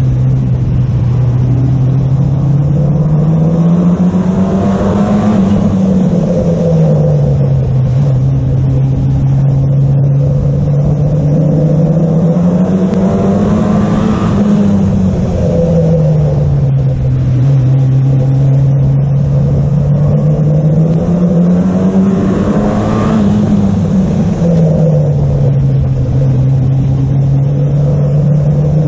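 Stock car's engine heard on board, running hard the whole time, its note rising as it accelerates and falling back as it lifts off, three times about nine seconds apart, lap after lap on a short oval.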